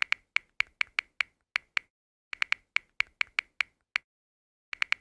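Typing sound effect: sharp key clicks at about five a second, in runs broken by two short pauses, with dead silence between the clicks.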